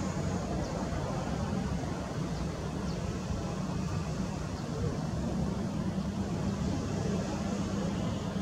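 Airbus A320-214's twin CFM56 turbofan engines running at low taxi thrust as the airliner rolls onto the runway: a steady low drone.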